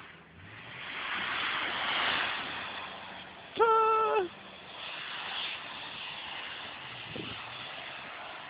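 A rushing noise swells and fades over the first two seconds, then a car horn sounds once, a steady blast under a second long, about three and a half seconds in.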